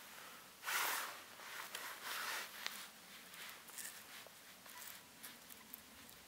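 Knife blade scraping and peeling papery bark off a dead log. A few rasping strokes, the loudest about a second in, with small crackles of bark between them.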